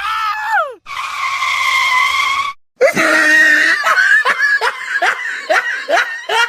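High-pitched cries from a voice: a short call that falls in pitch, a held scream-like cry of about a second and a half, then a fast run of short cries, each falling in pitch, about three a second.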